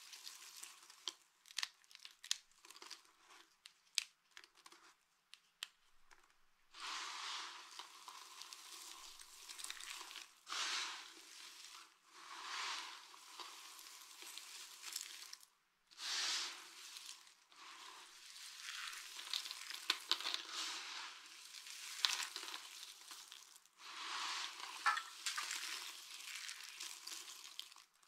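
Dry soap shavings and chunks crushed in the hands: first a run of sharp snaps and crackles, then repeated swells of crunching as handfuls are squeezed.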